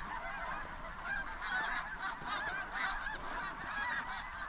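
A large flock of snow geese calling, a dense chorus of many short, high honks overlapping without a break.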